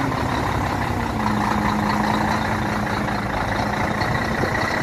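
Scania truck's diesel engine running steadily at low revs close by.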